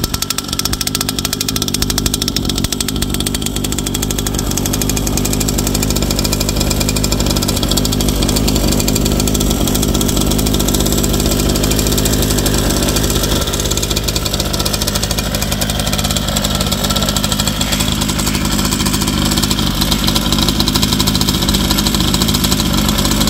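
49cc two-stroke mini dirt bike engine idling steadily through its sports exhaust.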